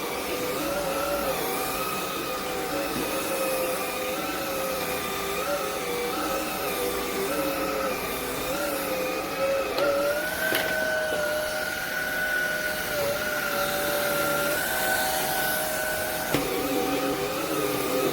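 Shark cordless vacuum cleaner running with a steady, slightly wavering motor whine. About ten seconds in, the pitch steps up to a higher, steadier whine, and it drops back near the end.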